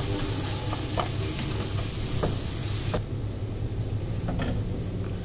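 A wooden spoon stirs and mashes cooked cluster beans in an aluminium pot, with a few light knocks of the spoon against the pot. A steady low hum runs underneath, and the higher hiss drops away about three seconds in.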